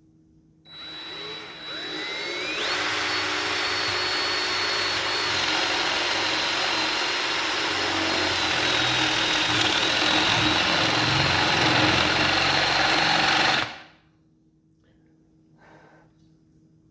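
Electric hand drill with a 3/4-inch spade bit boring into wood. The motor spins up with a rising whine about a second in, runs steadily under load for about eleven seconds, then stops suddenly.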